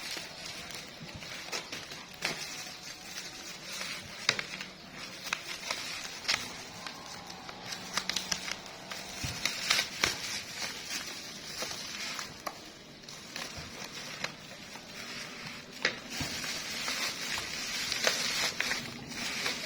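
Packaging being handled and opened: crinkling and rustling with many scattered sharp clicks and taps.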